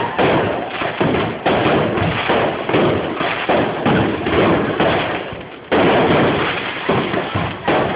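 Fireworks going off in a rapid barrage: bangs about two a second, each trailing into the next, with a bigger bang about six seconds in.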